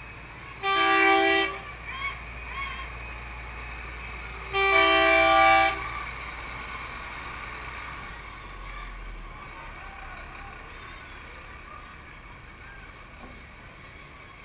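Truck horn blown twice, about a second each and some four seconds apart, each blast two notes sounding together. Under the blasts is the low rumble of the truck's engine as it passes, which fades away after about nine seconds.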